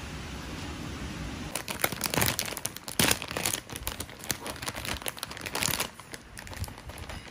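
Plastic salad bag crinkling as it is handled and the greens are tipped out. It is a dense run of irregular crackles that starts about a second and a half in and dies down near the end.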